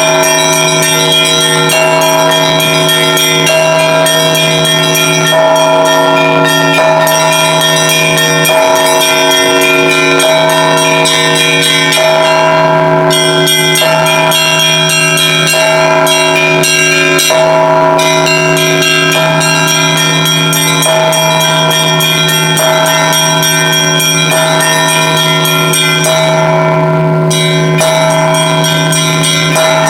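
Russian church bell ringing: several bells of different pitches rung together in one continuous peal, a low bell humming steadily under repeated strokes on the higher bells about once a second.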